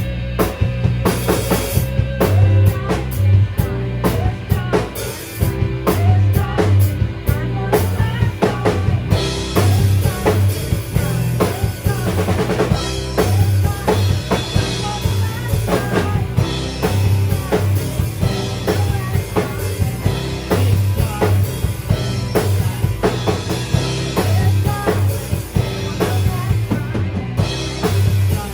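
Rock band playing live: a drum kit with bass drum and snare drives a steady beat under bass, electric guitars and keyboards.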